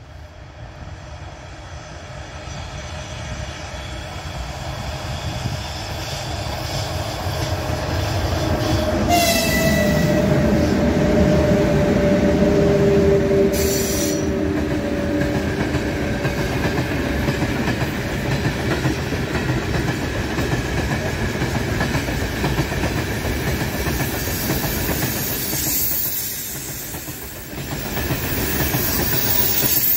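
Freight train hauled by a 4ES5K 'Ermak' electric locomotive passing close by. The rumble grows as the locomotive comes on and passes about nine seconds in, bringing a tone that slides slightly down in pitch over several seconds. The freight wagons' wheels then keep clattering over the rails.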